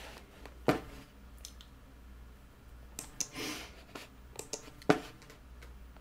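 Computer mouse clicking a few separate times, with a short soft rustle about halfway through, over a low steady hum.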